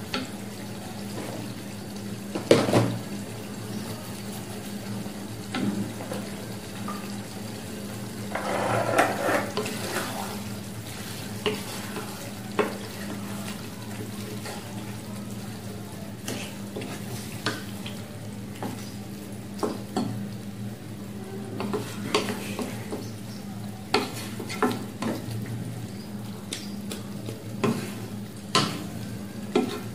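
Wooden spatula stirring chicken pieces in a thick yogurt gravy in a nonstick kadai, knocking and scraping against the pan now and then, with a stronger knock about two seconds in and a brief bout of scraping around eight seconds in. A steady low hum runs underneath.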